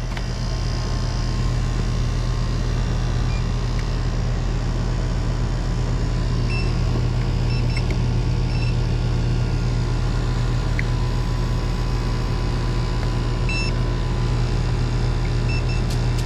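Goodman 3-ton air-conditioning condenser running: a steady low hum from the compressor and condenser fan. A few short electronic beeps come now and then.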